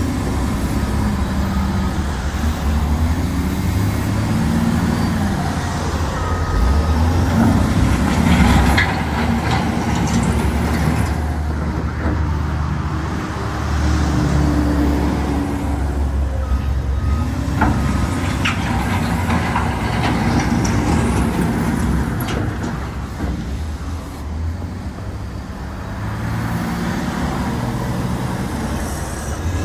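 Caterpillar 928G wheel loader's diesel engine running, its pitch rising and falling as it is revved and worked. A few short high beeps sound over it.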